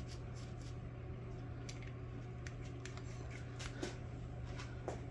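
Faint, scattered small metallic clicks as a connecting rod cap and its nuts are fitted back onto the rod by hand, over a steady low hum.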